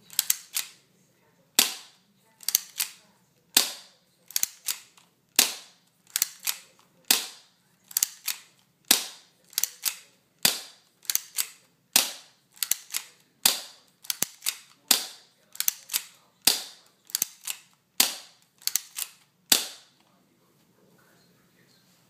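Beretta 92FS spring-powered airsoft pistol being fired over and over, a long run of sharp snaps, many in close pairs, about one a second, stopping near the end.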